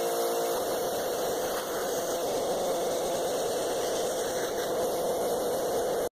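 Karcher 1900 psi electric pressure washer spraying, a steady dense hiss of the water jet; a steady motor tone gives way to the spray about half a second in, and the sound cuts off suddenly near the end.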